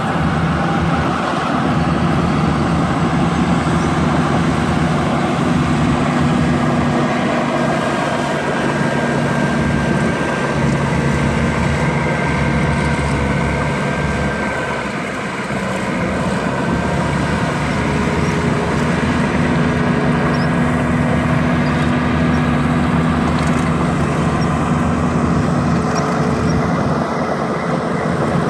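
Diesel engines of crawler bulldozers working dirt, running steadily, with a thin steady high whine over much of it and a brief drop in loudness about halfway through.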